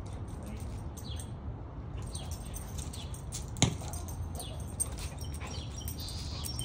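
Outdoor backyard ambience: a steady low rumble with small birds chirping now and then. A single sharp knock a little past halfway stands out as the loudest sound, with a fainter tap about a second later.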